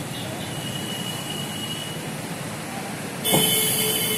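Steady road noise from a vehicle driving along a city street. About three seconds in, a sudden louder hiss with shrill steady tones cuts in.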